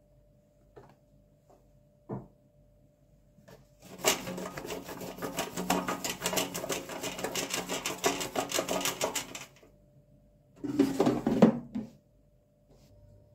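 Oiled raw potato wedges being shaken in an air fryer basket: a dense rattle of wedges knocking against the basket for about five seconds. A shorter, louder clatter follows near the end as the basket is handled.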